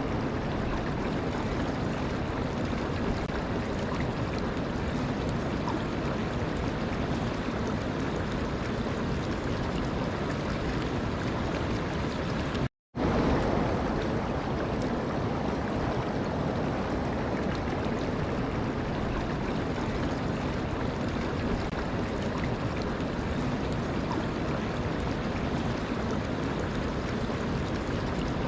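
Steady rush of flowing water. It cuts out completely for a split second about halfway through, then comes back slightly louder.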